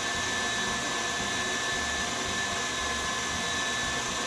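Stand mixer running steadily at speed, its wire whisk whipping eggs toward soft peaks: an even motor whir with a thin steady whine.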